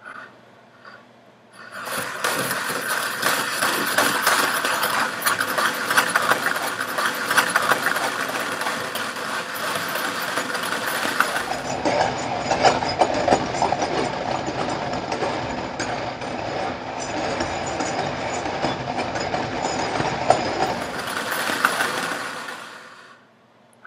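Metal Slinky being shaken hard to send waves along it, its coils clattering and jangling against each other and the tabletop. It starts about two seconds in, turns duller about halfway, and stops shortly before the end.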